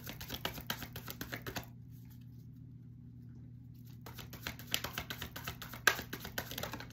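A tarot deck being shuffled by hand: a quick run of card clicks, a pause of a couple of seconds, then a second, longer run with one sharper snap near the end.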